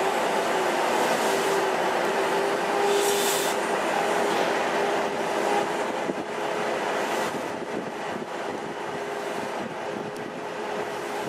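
Steam locomotive being turned on a railway turntable: a steady hiss and rumble of rail machinery with a faint steady whine held underneath, easing a little in the second half.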